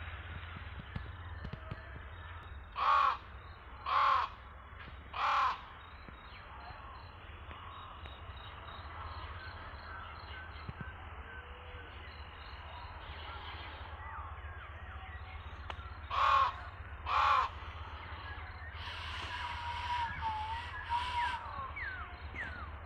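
Crow cawing outdoors: three harsh caws about a second apart, then two more some ten seconds later, over a steady low hum. Small birds chirp faintly near the end.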